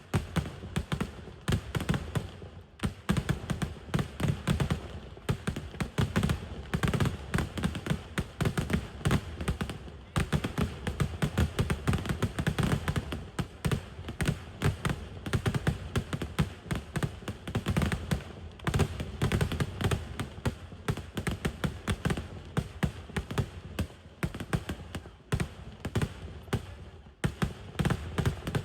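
Dense barrage of firecracker bangs from a Kerala vedikkettu fireworks display, many explosions a second in a continuous rattling chain.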